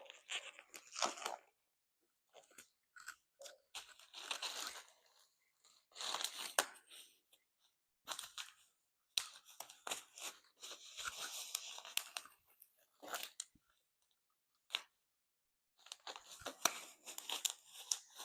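Plastic packaging being crinkled, torn and pulled off new motorcycle parts in irregular bursts, with a few sharp clicks among them.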